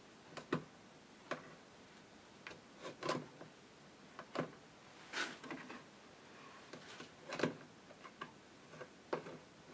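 A hand squeezing and gathering butter lumps in a plastic bucket of churned curd: irregular short wet squelches and splashes with brief pauses between.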